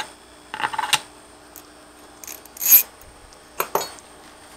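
Hands handling an outdoor LTE unit's opened housing: scattered rubbing, scraping and clicking of plastic and metal parts. The loudest sound is a scrape between about two and a half and three seconds in, and a short sharp click follows.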